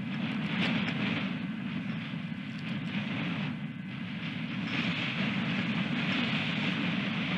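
Strong gusting wind buffeting the nest camera's microphone, a steady rumble and hiss that swells and eases.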